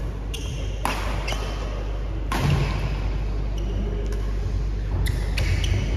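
Badminton rackets striking the shuttlecock in a doubles rally: a string of sharp cracks at uneven intervals, some in quick succession, over the steady hum and murmur of a large indoor hall.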